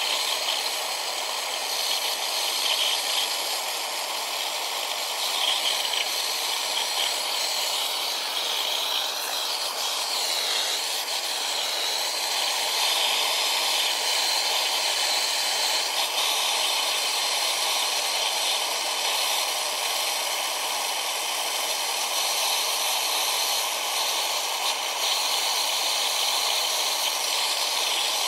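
Twin-tube gas torch burning steadily, a continuous hiss of flame playing on a thick iron angle. A faint whistle within the hiss wavers briefly about ten seconds in.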